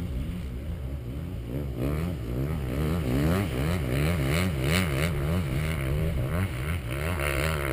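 Off-road 4x4 truck's engine running, its pitch rising and falling quickly and repeatedly from about two seconds in as the throttle works over rough ground, with rattling from the truck.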